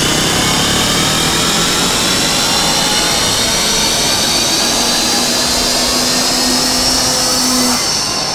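Electronic trance music build-up over a club sound system: a loud rising whoosh of noise with slowly climbing tones, which cuts off near the end.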